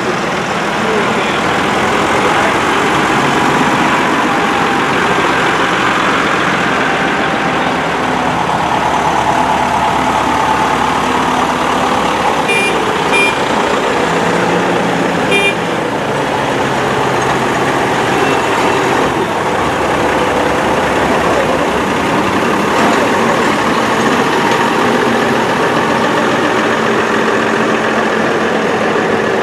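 Diesel engines of a line of large farm tractors, Fiatagri then Fendt, running as they drive slowly past one after another. Three short high beeps sound about halfway through.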